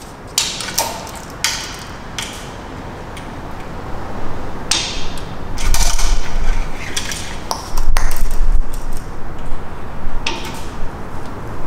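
Scattered metallic clicks and knocks with short ringing tails as a steel tape measure is stretched and held across a metal truck frame to take a measurement, with a couple of low thuds near the middle.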